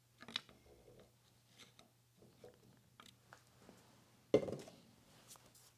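Rear metal handwheel of a 1951 Cincinnati No. 2 tool and cutter grinder being worked loose on its shaft: light metal clicks and scrapes, with one louder knock a little after four seconds in.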